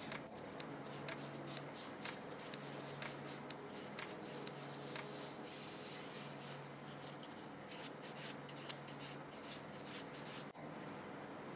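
Nail buffer block, 180-grit side, rubbing over gel nail enhancements in quick, repeated back-and-forth scratchy strokes, polishing the gel surface.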